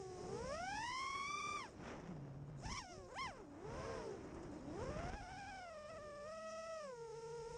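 A 5-inch FPV quadcopter's motors and propellers whining, the pitch rising and falling with the throttle. It climbs in the first second and a half, drops away suddenly, gives two quick sharp blips about three seconds in, then rises again and settles to a steady whine near the end.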